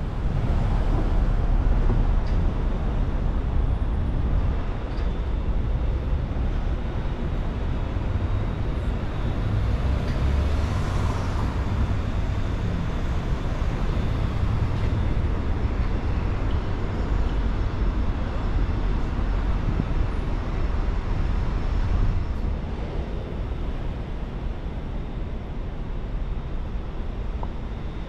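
Outdoor road-traffic noise: a steady low rumble of vehicles on the airport roadways, swelling louder for a moment about ten seconds in.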